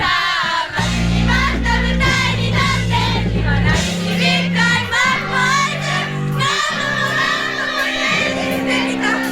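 Live school wind band playing a pop arrangement: low brass holding sustained chords under a bending, wavering melody line, with voices singing or calling along.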